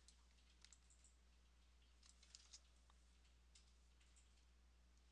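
Near silence with a faint steady low hum, broken by about eight faint, scattered computer mouse clicks.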